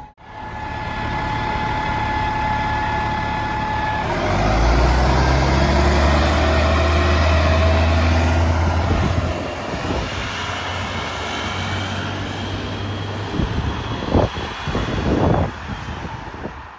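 Dennis Trident double-decker bus's diesel engine idling, then about four seconds in it pulls away under load with a deep rumble and a high turbo whistle that rises slowly as it drives off. A few sharp knocks near the end.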